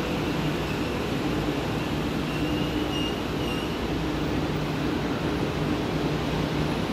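JR West 681 series electric train rolling slowly to a stop, with a steady low hum and rumble. A brief high squeal comes about three seconds in, as it stops.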